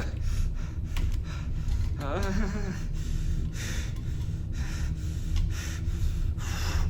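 A man breathing heavily in and out, about one breath a second, with a short voiced moan about two seconds in, over a steady low hum.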